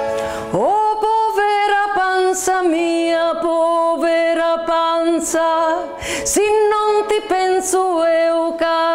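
A woman singing a Calabrian folk song, holding long wavering notes, to a strummed acoustic guitar.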